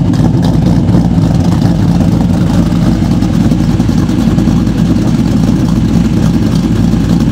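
2014 Ford Mustang GT's 5.0-litre V8 on an aftermarket cam tune, idling steadily through longtube headers and SLP Loudmouth axle-back exhausts.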